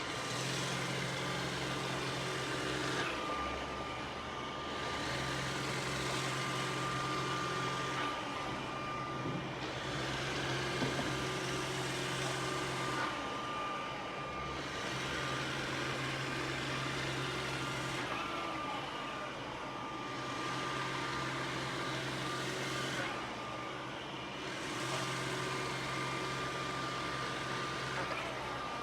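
iRobot Roomba s9+ robot vacuum running: a steady motor whir with a thin high whine, and a low hum that cuts out and comes back every few seconds.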